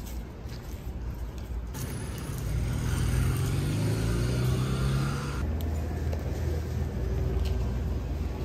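A motor vehicle's steady low rumble. From about two seconds in, a louder hiss joins it and cuts off abruptly a little after five seconds.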